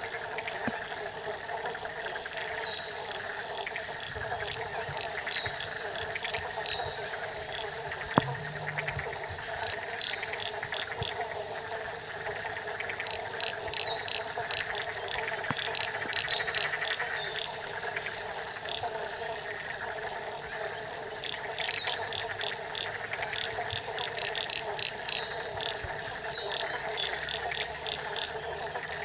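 Chorus of frogs calling over steady light rain falling on lagoon water, with repeated trains of rapid high-pitched pulsing calls. A single sharp click stands out about eight seconds in.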